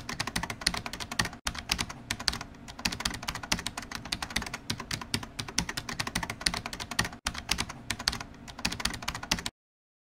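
Computer keyboard typing sound effect: a fast, continuous run of key clicks with two very brief breaks, stopping suddenly near the end.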